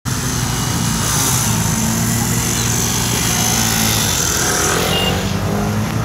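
Motorcycle and scooter engines running steadily at idle, a continuous low hum under a steady noisy hiss.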